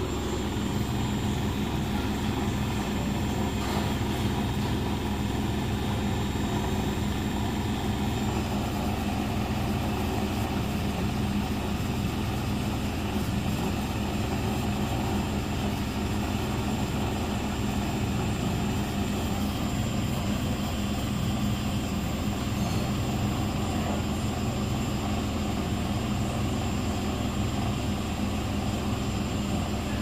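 Beko WS832425S washing machine spinning at 1300 RPM: the drum and motor run with a steady, even hum that neither rises nor falls.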